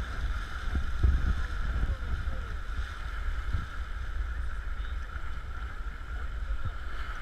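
Sea water sloshing and wind buffeting a GoPro held at the ocean's surface: a steady low rumble that swells and eases unevenly.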